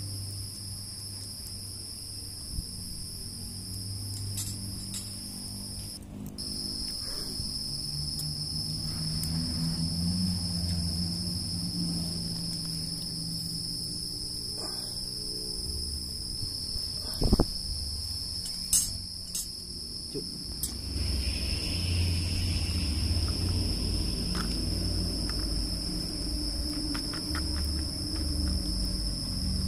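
Steady, high-pitched insect drone, unbroken throughout, over soft low background music, with a few brief knocks just past the middle.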